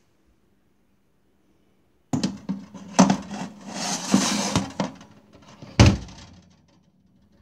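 Metal baking tray clattering against the rack and scraping as it is slid into a small countertop electric oven, starting about two seconds in, then the oven door shut with a loud thump near six seconds in.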